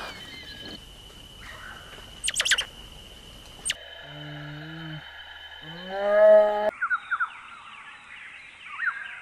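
A string of animal calls spliced from different recordings: a few quick high chirping sweeps, then a low moaning call, then a louder call that rises in pitch about six seconds in, followed by a run of short bird-like chirps.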